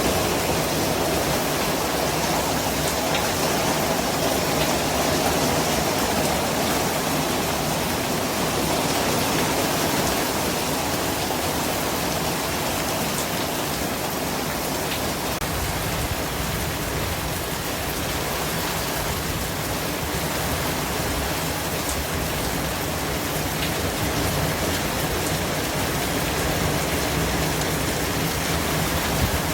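Steady, unbroken noise hiss spread evenly from low to high pitch: a white-noise track.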